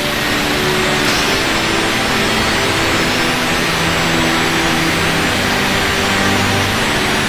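Handheld angle grinder cutting into the steel underbody of a Tata Safari, a steady grinding.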